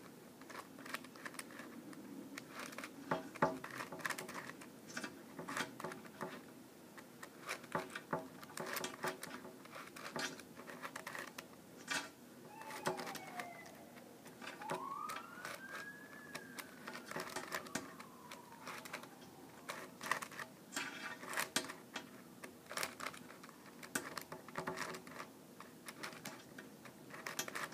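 Pocket Geranium twisty puzzle's plastic discs being turned by hand through a sequence of moves: an irregular run of small clicks and rattles as the pieces slide and snap into place. About halfway through, a faint tone rises and then falls over a few seconds.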